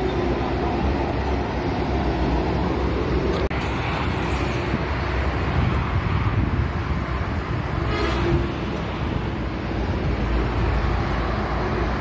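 Steady road-traffic noise: a continuous low rumble of vehicles passing on a highway, with a brief hiss about eight seconds in.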